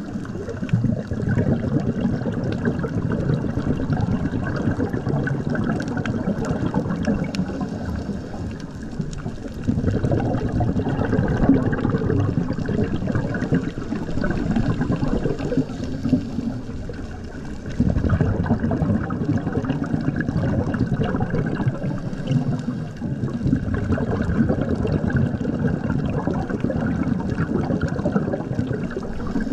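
Muffled, churning rush of water as picked up by a camera held underwater, with no pitched sound in it. It swells louder about a third of the way in, dips briefly, then swells again.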